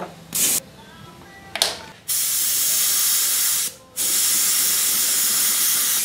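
Airbrush spraying a white base coat: two short puffs of hiss, then two longer steady sprays with a brief break just before the fourth second.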